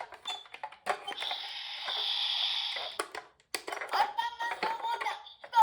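Toy emergency-vehicle minicars: sharp plastic clicks and a hissing whir, then an electronic siren tone from a toy's sound unit starting about three and a half seconds in.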